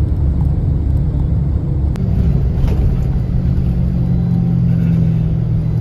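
Engine and road noise inside a moving vehicle: a steady low rumble, with an engine hum holding one pitch from about halfway through.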